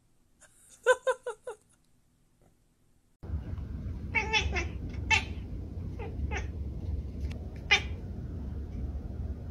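A domestic cat meowing in a series of short calls over a steady low hum, most of them bunched between about four and eight seconds in. Before that, about a second in, there is a quick string of four or five short, high calls.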